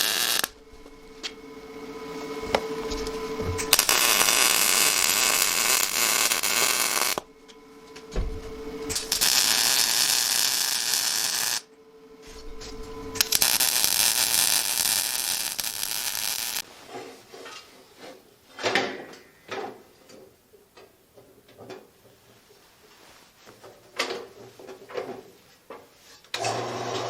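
MIG welder arcing in several bursts of steady crackling hiss, each a few seconds long, with short pauses between as weld beads are laid on steel square tubing. Then irregular clinks and knocks of steel pieces being handled.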